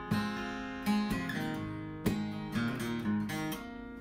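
Background music: strummed acoustic guitar, with a plucked strum about once a second.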